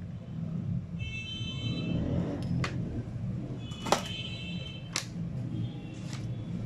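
Sharp small clicks and taps of hand work on a laptop charger's circuit board while the cable's positive wire is being attached, the loudest about four seconds in, over a steady low hum. A thin, steady high-pitched tone sounds twice.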